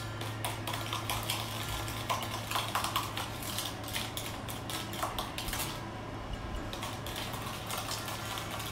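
A spoon stirring and whisking a sauce mixture in a bowl, with quick, irregular clinks against the bowl's side, over a steady low hum.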